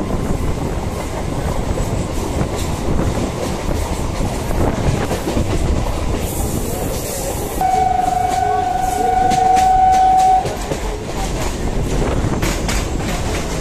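Local train running with a steady, noisy rumble. About halfway through a train horn sounds one steady note for about three seconds, just after a brief hiss.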